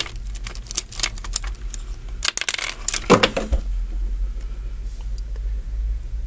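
Hard plastic toy parts clicking and clattering as a hand picks up and handles a B-Daman toy: a quick run of clicks, with a louder clatter about three seconds in, then only a low steady hum.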